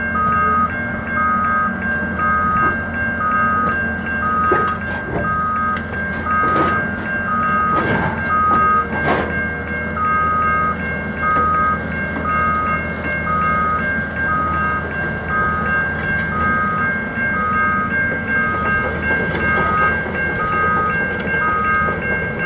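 Heavy equipment diesel engine running with a steady back-up alarm beeping about once every 0.8 seconds, the warning that the machine is travelling. Several sharp metal clanks come between about four and nine seconds in.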